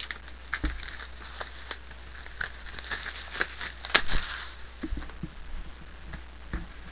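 Crinkling rustles and scattered clicks as a cardboard box of trading cards is handled on a wooden table, with one louder click about four seconds in.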